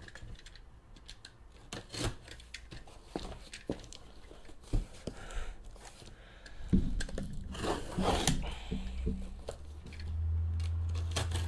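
A sealed cardboard case of trading-card boxes being ripped open: tape and cardboard tearing, with rustling and handling clicks that are busiest about seven to nine seconds in. A low steady hum comes in near the end.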